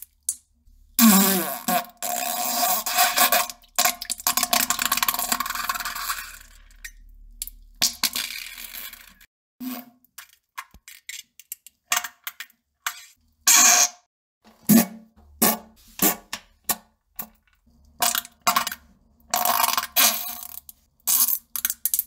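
Fart sound effects: one long fart lasting about six seconds, followed by a rapid string of short, sharp farts.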